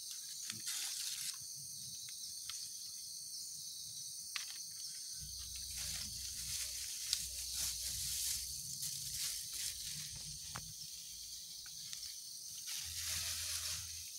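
Steady high-pitched drone of insects in the garden, with light rustles and clicks of hands handling paper wrappers and leaves, and a low rumble from about five seconds in.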